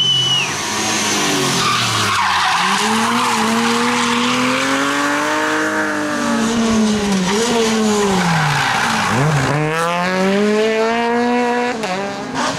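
BMW E30 rally car engine revving hard as the car slides sideways through a hairpin; the engine note rises and falls repeatedly with the throttle and dives then climbs sharply about nine seconds in. Tyres screech and skid on the asphalt.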